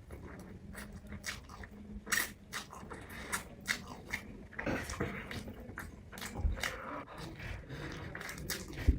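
Close-miked chewing and biting of noodles: irregular wet mouth clicks and smacks, a few sharper ones among them.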